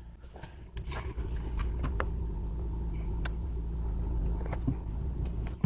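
Steady low rumble from the car, with several light, sharp clicks as the dashboard fuse panel is handled.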